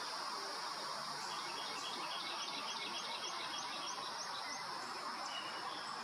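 Woodland ambience: a steady insect hiss, with a small songbird calling a run of about eight short, rising high chirps, roughly three a second, in the middle of the stretch.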